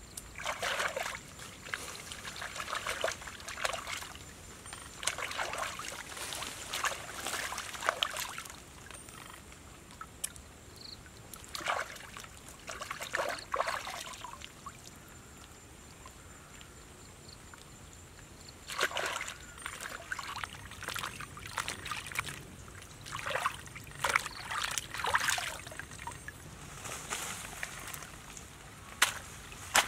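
Water sloshing, splashing and trickling in irregular bursts of one to a few seconds, with quieter pauses between them.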